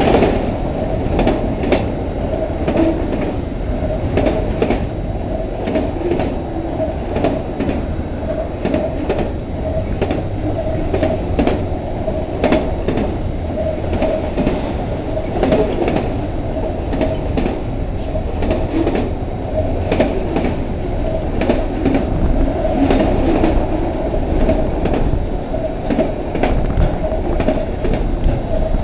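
CN freight train cars rolling past at speed: a steady rumble of steel wheels on rail, with repeated clicks as wheels pass over rail joints.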